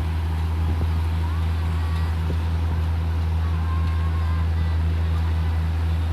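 A heavy farm machine's engine, such as a wheat harvester's, running at a steady speed with a deep, even drone.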